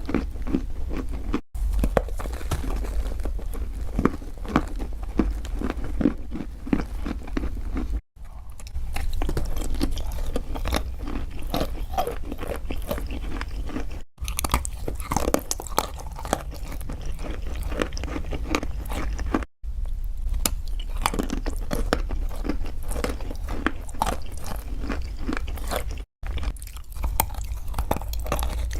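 Close-up crunchy eating: someone bites and chews crisp food in a dense run of irregular crunches, over a steady low hum. There are a few short silent breaks.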